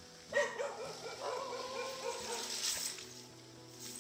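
A dog giving a quick run of short, high yelps that trail off into a whine.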